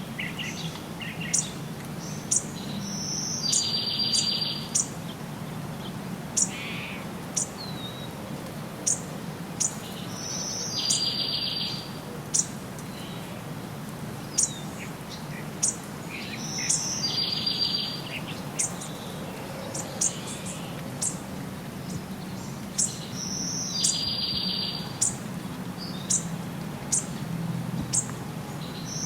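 Songbirds calling: frequent short, high chirps, and about every six to seven seconds a phrase of one high note followed by a rapid buzzy trill. A faint steady low hum runs underneath.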